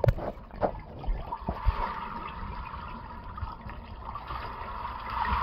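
Swimming-pool water recorded with the camera held underwater: a steady watery rush, with a few sharp knocks in the first second and a half.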